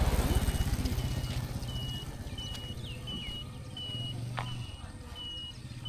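A bird repeating one short, high note at an even pace, about every 0.7 seconds, over a low rumble that is loudest at the start and then eases.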